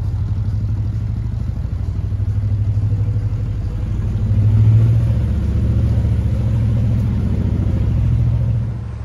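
Narrowboat's diesel engine running under way, a steady low note that gets louder about halfway through and holds.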